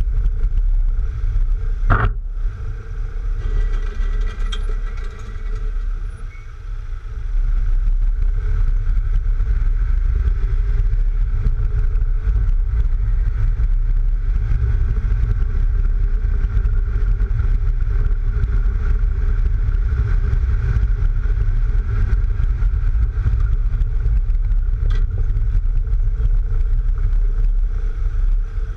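Wind buffeting a camera mounted low on the side of a lowered Mk3 VW Golf as it drives along, under steady tyre and road noise, with one sharp knock about two seconds in.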